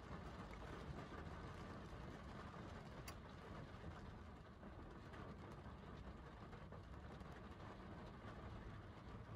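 Rain falling, heard as a faint, steady hiss over a low rumble, with a single sharper drop tap about three seconds in.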